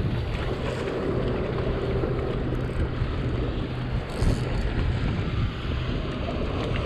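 Wind buffeting the microphone over the steady low drone of a motorboat's engine running in the channel, with a brief louder gust about four seconds in.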